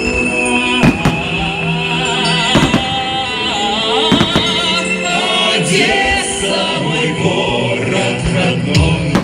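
A song with singing plays loudly, with the sharp bangs of fireworks bursts cutting through it several times.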